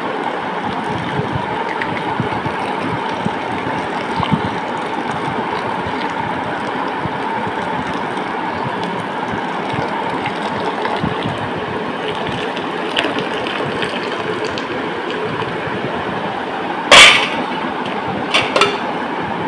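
Steady rushing noise with a faint hum in it, unchanged throughout. A single sharp knock comes about three-quarters of the way in, followed by two small clicks.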